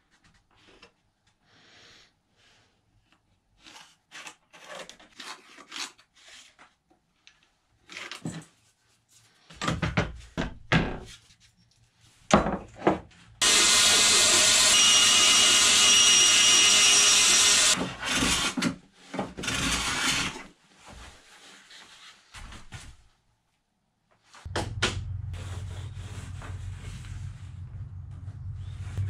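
Knocks and rubs of plywood and tools being handled, then a bandsaw cutting a plywood strip for about four seconds, a steady loud cut with a thin high whine that stops abruptly. Near the end a steady low hum sets in.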